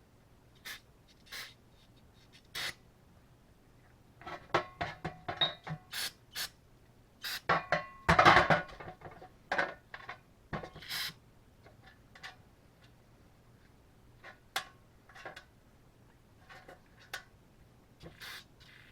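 Metal hand tools clicking, tapping and scraping against an outboard carburetor being taken apart. There are a few scattered clicks, then a busy stretch of taps and scraping with the loudest scrape about eight seconds in, then a few more clicks.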